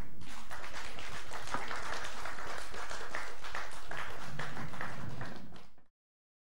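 Audience applauding, a dense steady patter of many hands clapping that fades out about five and a half seconds in.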